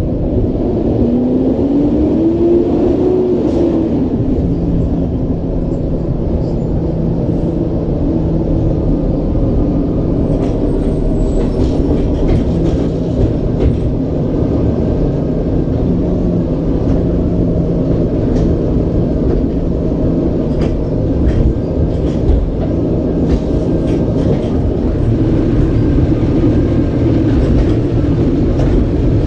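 Automated side-loader garbage truck running with a steady low rumble. About one to three seconds in, a whine rises and then falls. From about ten seconds in there is a run of scattered knocks and clanks.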